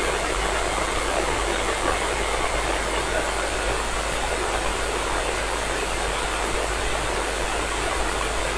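Steady FM receiver static: an even hiss from a software-defined radio tuned to the ISS 145.800 MHz downlink while no voice is being transmitted.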